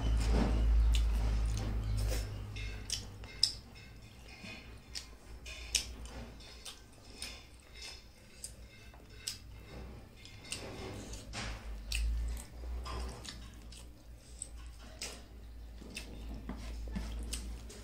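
Close eating sounds: fingers mixing rice with mutton soup on a plate, and chewing and lip smacking, heard as many small, irregular clicks and ticks.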